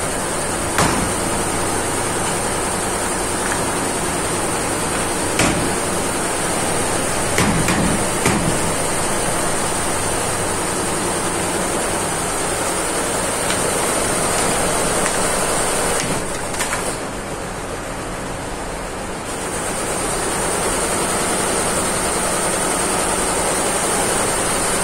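Steady machine noise of an embroidery workshop, a continuous whirring hiss with a low hum under it, broken by a few light knocks as the fabric and the loose rails on the machine table are handled. About two-thirds of the way through, the high hiss drops away for a few seconds and then returns.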